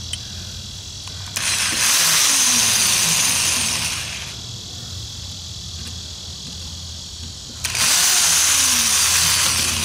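Corded electric drill running, its bit drilling a starter hole through the thin steel rim of a tin can. The sound jumps to two louder spells of a couple of seconds each, about a second and a half in and again near the end.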